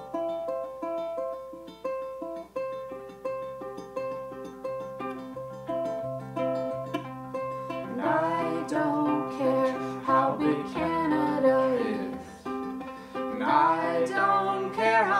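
Ukulele and acoustic guitar playing together in an evenly paced run of plucked notes. About eight seconds in, a singer comes in over them, breaks off briefly and sings again near the end.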